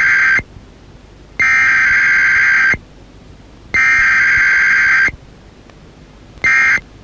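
Emergency Alert System SAME digital data bursts, a harsh buzzing screech from two alternating tones. Three long header bursts come about a second apart, the first already under way and ending just after the start, and a much shorter end-of-message burst follows near the end.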